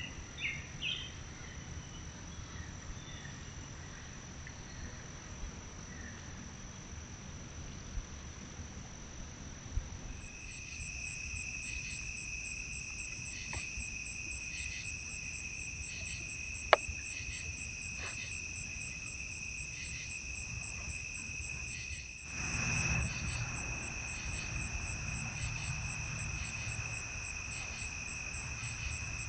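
Chorus of night insects: a steady, high-pitched trilling at two pitches that starts about a third of the way in, with a single sharp click partway through.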